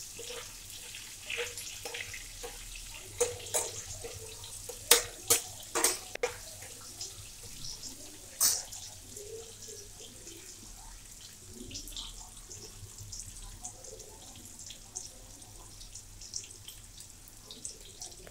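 Vegetables sizzling in hot oil in a nonstick frying pan. A metal spatula clicks and scrapes against the pan again and again in the first half, loudest about five and eight and a half seconds in, then only the steady sizzle remains.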